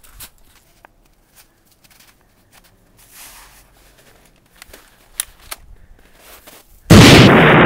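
A few faint clicks and rustles, with two sharper clicks just after the middle, then near the end a sudden, very loud explosion blast that keeps rumbling on.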